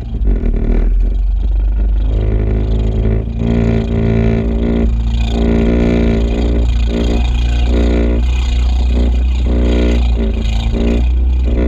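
Kawasaki stand-up jet ski engine running and revving in repeated surges as the ski gets underway from about two seconds in, with the rush of water spray off the hull.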